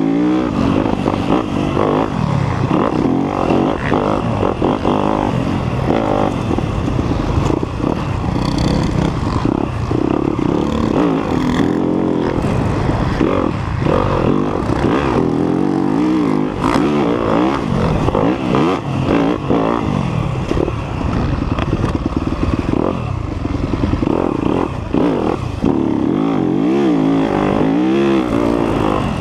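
2019 Yamaha YZ250F's single-cylinder four-stroke engine being ridden hard, revving up and dropping back again and again through throttle and gear changes, heard close up from the rider's camera.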